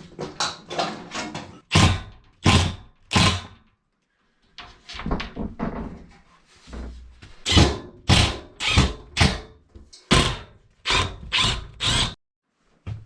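Repeated hard knocks and thuds from fitting a wood stove and its pipe: three about two seconds in, a stretch of quieter rustling and scraping, then a run of about ten knocks in the second half.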